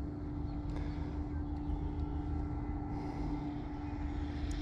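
Low wind rumble on the microphone, with the high whine of a brushless-motor RC car (3650-size 7620 kV motor on 2S) starting about three seconds in and growing louder as the car comes back toward the camera.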